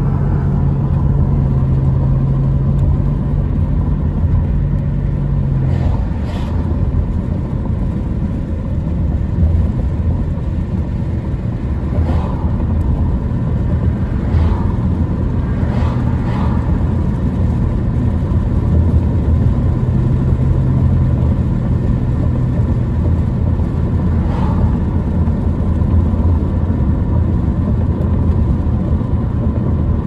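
Steady engine and road rumble heard inside a moving car's cabin. A low engine drone holds one pitch for the first several seconds and again about two-thirds of the way in. A few brief faint knocks are scattered through the middle.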